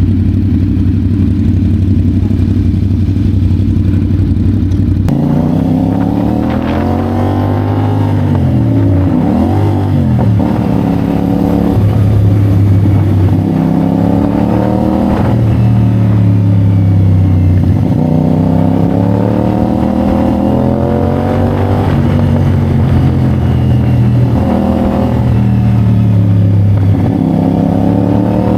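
CF Moto 450SR-S parallel-twin sport bike engine, heard from the rider's seat. It runs at a steady low note for about five seconds, then revs repeatedly climb and drop as the bike accelerates and slows.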